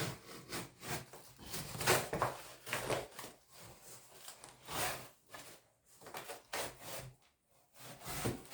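Spyderco pocket knife slicing through a cardboard shipping box: a series of short, irregular rasping cuts with the cardboard scraping and rustling between them.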